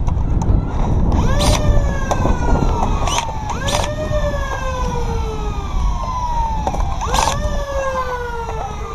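Motorized flywheel foam-dart blaster revving three times: each time a quick rising whine that then slides slowly down in pitch as the flywheels spin down. Sharp clicks come near each rev, over a steady low rumble.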